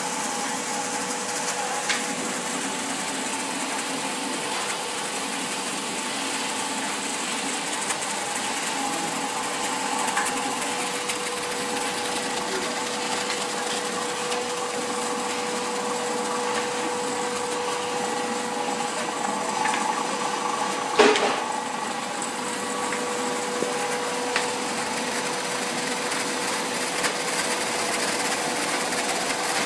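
Foliant Gemini C400A automatic B3 laminator running: a steady mechanical hum with a constant tone, with a few small clicks and one sharp, louder clack about two-thirds of the way through.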